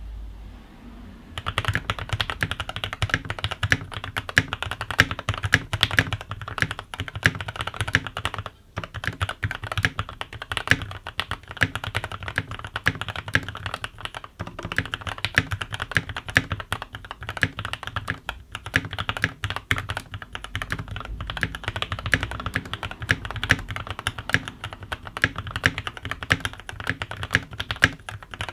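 Typing on a Skyloong GK87 tenkeyless mechanical keyboard with Gateron Milky Yellow linear switches lubed with Krytox 205g0, a steel plate, foam dampening and PBT keycaps. It is a fast, continuous clatter of keystrokes that starts about a second and a half in, with a couple of brief pauses.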